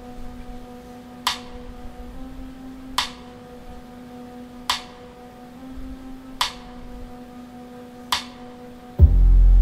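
Music played through a Bose L1 Pro 8 column speaker with a Bose F1 subwoofer: a sparse intro of a sharp finger-snap-like click about every 1.7 s over a low held tone. Near the end, heavy bass comes in loudly as the full track starts.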